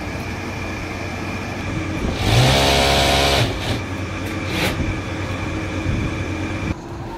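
Yamata industrial sewing machine running as it stitches knit jersey fabric, with a steady motor hum and a louder burst at higher speed lasting about a second, a little after two seconds in.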